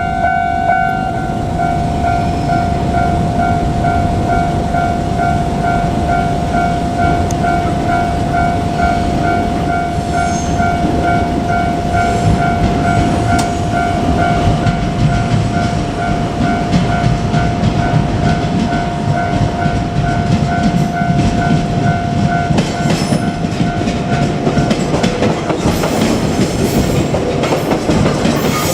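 Level-crossing warning bell ringing steadily with an evenly repeating ding, over the rumble and wheel clatter of a JR Kyushu 817 series electric train going by. The bell stops about 25 seconds in while the train noise carries on.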